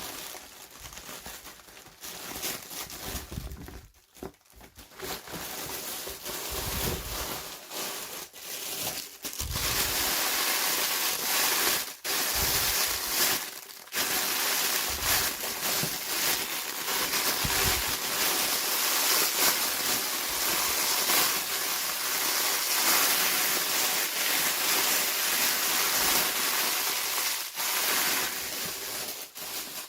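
Packaging being handled and unwrapped, crinkling and rustling in fits at first and then almost without a break from about a third of the way in, with two short pauses.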